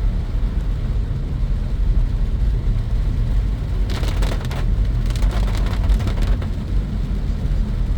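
Steady low rumble of slow-moving road traffic, with a cluster of sharp clicks and hiss about four to six seconds in.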